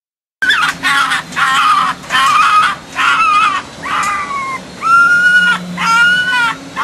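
Fox calling: a rapid run of loud, high whining calls, each about half a second long with a rise-and-fall pitch, roughly ten in a row, starting about half a second in.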